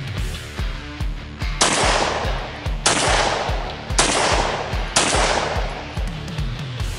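Four shots from a Remington Model 8A semi-automatic rifle in .35 Remington, fired about a second apart in quick succession, each cracking and then fading out. Background music with a steady beat plays throughout.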